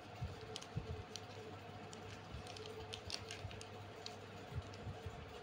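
Folded paper crinkling and rustling in the hands as a corner is worked into a slot, a scatter of small sharp clicks over a steady low hum.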